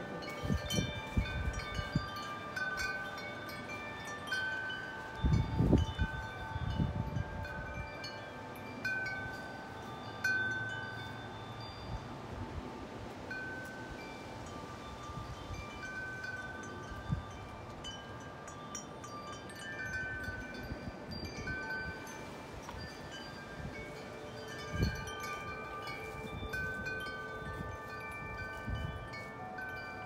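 Large metal tube wind chime ringing in gusty wind, its tubes struck in irregular clusters so that long overlapping notes hang on. Gusts of wind hit the microphone, hardest about five to seven seconds in.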